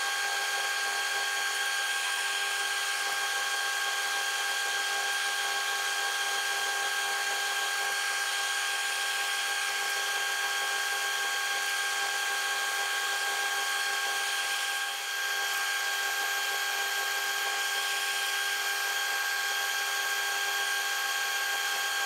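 Milling machine running with a steady multi-pitched whine as a 60-degree countersink in its spindle cuts the small tip off each tooth of a ratchet wheel, under flood coolant. The level dips briefly about two-thirds of the way through.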